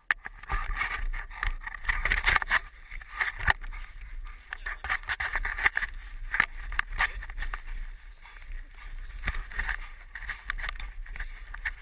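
Handling noise from a GoPro camera on a stick held in a running dog's mouth: irregular scraping, knocking and rubbing against the camera, over a steady low rumble.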